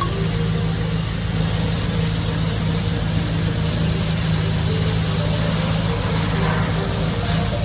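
A steady, unchanging low engine drone, like a motor idling, holding the same pitch and level throughout.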